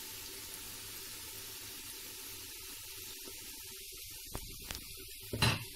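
Shredded carrot and pepper frying in oil in a frying pan, a steady sizzling hiss. A short thump comes near the end.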